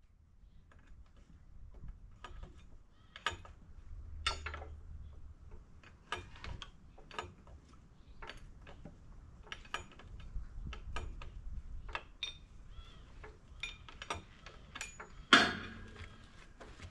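Hand tools and metal parts clinking and knocking at irregular intervals during work on a forklift's hydraulic lift cylinder, with one loud metallic clang that rings briefly near the end.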